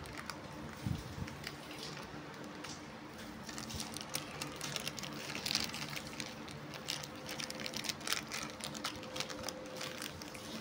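Foil-lined plastic biscuit wrapper crinkling as it is handled, in irregular crackles and clicks that are busiest in the middle.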